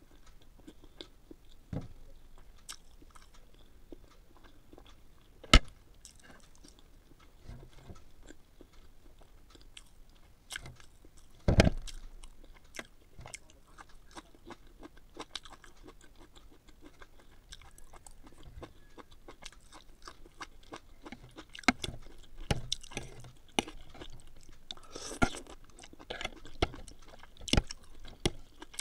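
Close-miked chewing and mouth sounds of someone eating, starting on a boiled egg, with many small wet clicks. A sharp click comes about five seconds in and a heavier knock near twelve seconds. Clicks and chewing grow busier near the end.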